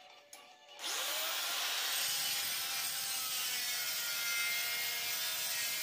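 Handheld electric circular cutter (marble cutter) starting up about a second in with a short rising whine, then cutting steadily through a brown board.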